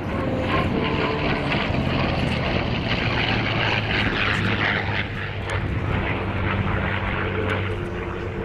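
A P-51 Mustang's V-12 piston engine and propeller droning steadily as it flies past, on a formation pass with an F-15E Strike Eagle.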